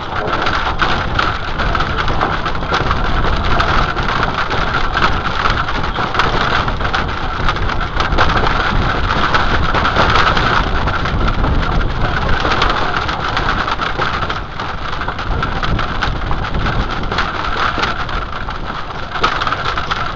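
Wind rushing over the microphone of a camera carried by a galloping rider, mixed with the thudding of horses' hooves on the dirt track. Steady and loud, easing a little about two-thirds of the way in.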